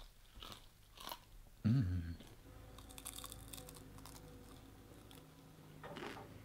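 Crunching and chewing as a homemade oven-baked Dorito-style chip is bitten, in scattered sharp crackles, with a short voiced grunt from the eater about two seconds in.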